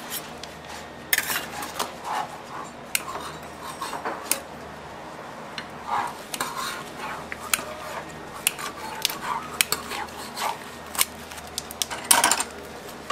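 Metal bench scrapers clinking and scraping against a steel candy table as hot sugar syrup is worked, in irregular sharp clicks and short scrapes with a louder clatter near the end.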